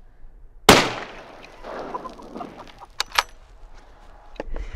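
.308 rifle firing a single 180-grain round: one sharp crack under a second in, with a short decaying tail. About two seconds later come two quick sharp clicks.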